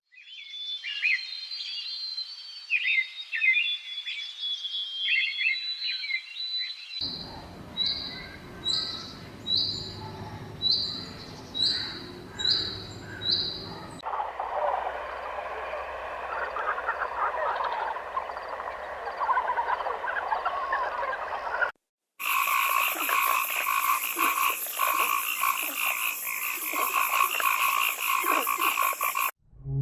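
Frogs calling in a series of short clips that cut abruptly from one to the next: high chirping calls, then a regular series of short calls about one to two a second, then a dense chorus.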